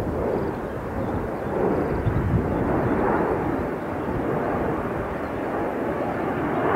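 Jet noise from a twin-engine widebody airliner flying a steep banking turn overhead: a steady rushing roar that grows a little louder and brighter near the end.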